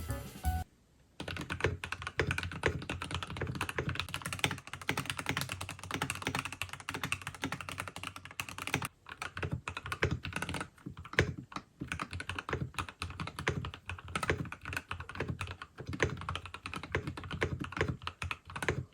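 Typing on a Keychron K8 Pro mechanical keyboard with an aluminium plate, fitted with home-made Gateron frankenswitches (North Pole V2 top housings on Gateron Pro Red bottoms) and CannonCaps City Sunset keycaps, a sound the builder likens to Gateron Oil Kings. The keystrokes come quick and continuous from about a second in, with a short pause about halfway through.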